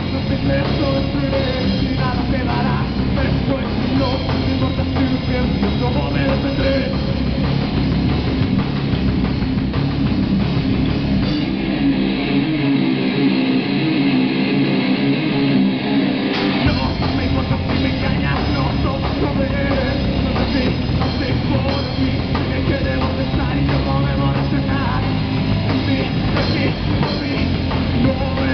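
Live rock band playing loud: electric bass, electric guitar and drum kit. About halfway through, the bass and low drums drop out for a few seconds, then come back in.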